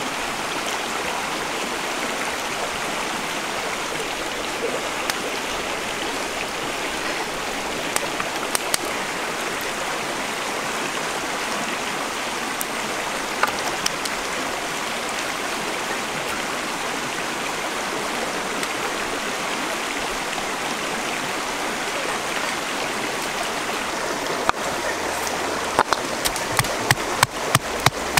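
Steady running stream water with a few isolated clicks. Near the end, a wooden pestle pounds chilies in a mortar with regular knocks, about two to three a second.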